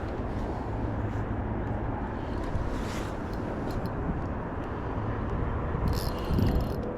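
Outdoor background noise: a steady low rumble, with a short high rattle about six seconds in.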